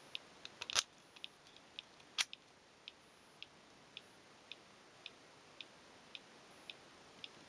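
Motorcycle disc lock giving off its abnormal noise: a faint, regular ticking at about two clicks a second, after a couple of louder sharp clicks near the start.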